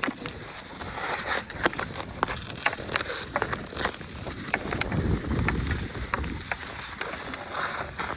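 Ice skate blades scraping and clicking irregularly on hard pond ice, with wind rumbling on the microphone, strongest about five seconds in.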